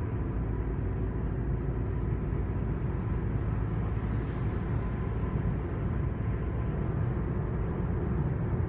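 Steady road and engine noise of a car cruising at expressway speed, heard from inside the cabin: a low, even rumble and tyre hiss.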